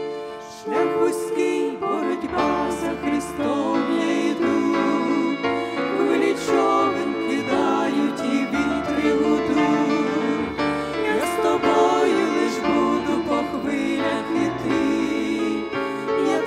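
Three women singing a Ukrainian gospel hymn in harmony, over a steady keyboard accompaniment of held chords.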